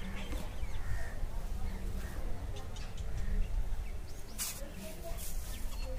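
Outdoor background of faint bird chirps over a low steady rumble, with a brief scratchy sound about four and a half seconds in.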